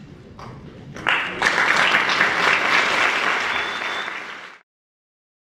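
Audience applauding. It starts about a second in and cuts off suddenly near the end.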